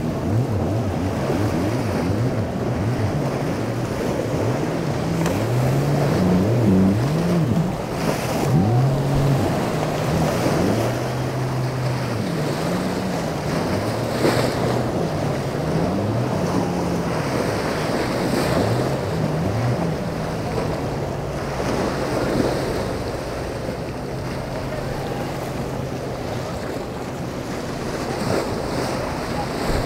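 Surf churning and wind around a sport boat pinned against jetty rocks, with its sterndrive engine revving up and down again and again for the first twenty seconds or so. A few sharp knocks come as the hull strikes the rocks.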